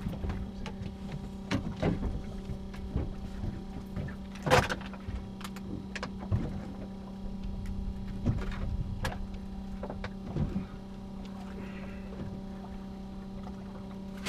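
Fishing boat's engine running with a steady drone, with scattered knocks and clicks on deck; the loudest knock comes about four and a half seconds in.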